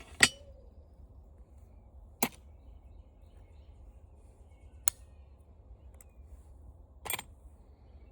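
Four sharp clacks of small metal and plastic parts from a floor fan's gearbox being handled, spaced a couple of seconds apart, the first the loudest.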